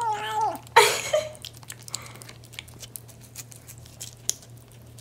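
Black kitten eating a lickable cat treat from a hand-held tube: a whining, meow-like 'umauma' cry that falls in pitch and ends within the first second, a short loud rush of noise just after, then a run of small clicks of licking and chewing.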